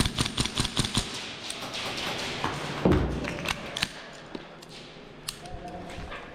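Quick runs of sharp cracks from gas blowback airsoft rifles firing, packed close in the first second and again around three to four seconds in, with a heavy thud about three seconds in.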